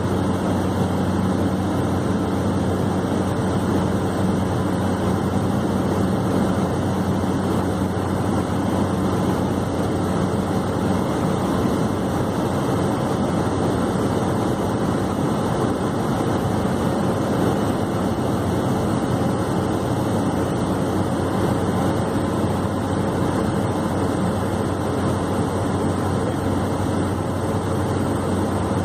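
Steady in-flight drone of a Cessna 208B Grand Caravan's single turboprop engine and propeller, heard inside the cabin: an even low hum under a constant rush.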